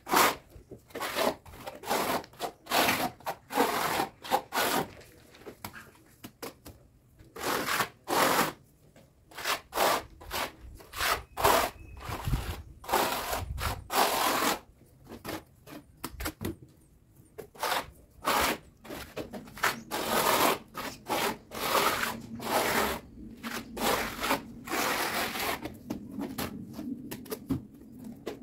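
Hand tool scraping mortar across a brick wall in quick, irregular strokes, one or two a second with short pauses: the first coat of mortar going on.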